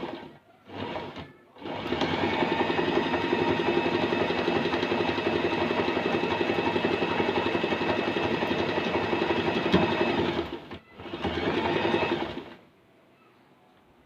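Usha Allure domestic sewing machine running at a zigzag stitch with stitch length set to zero, for free-motion monogramming on hooped fabric. A couple of short bursts open it, then a steady run of about nine seconds, a brief stop, and one more short run of about a second and a half.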